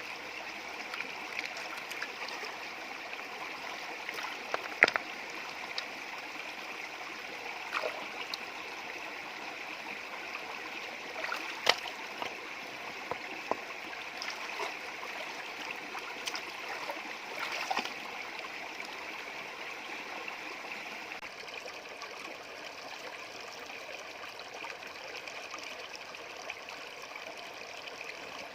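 Stream water running steadily, with a few sharp knocks or clicks scattered through, the clearest about five, eight and twelve seconds in.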